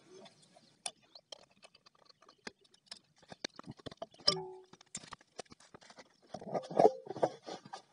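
Scattered small clicks and taps as the cable guide is taken off a submersible pump. A short animal call comes about four seconds in, and a louder one follows around seven seconds.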